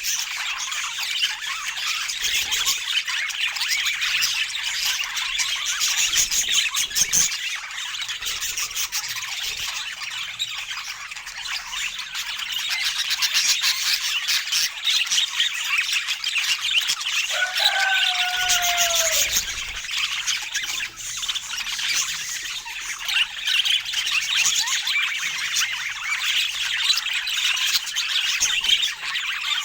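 Budgerigars chattering and warbling without a break, with one lower call that dips in pitch about two-thirds of the way through.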